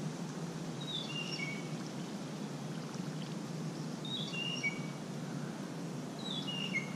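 A songbird sings the same short phrase three times, each a quick run of four or five notes stepping down in pitch, a few seconds apart. Under it runs a steady low background noise.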